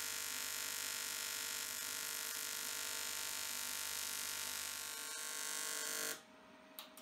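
TIG welding arc buzzing steadily as a small part is welded, then cutting off suddenly about six seconds in when the arc is stopped.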